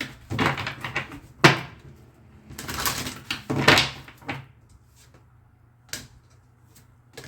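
Tarot cards being shuffled and handled: a series of quick papery swishes through the first four seconds, then two light taps near the end as cards are laid down.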